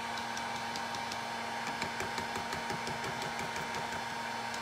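Steady low room hum, with faint, irregular light taps of a stencil brush dabbing white paint onto a painted board.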